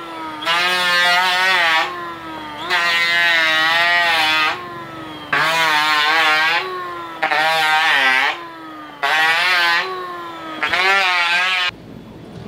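Electric hand planer running, its motor whining steadily, with six cutting passes along a wooden board, each about a second and a half long and louder than the free-running motor between them, shavings thrown clear from the chip outlet. The motor is switched off near the end.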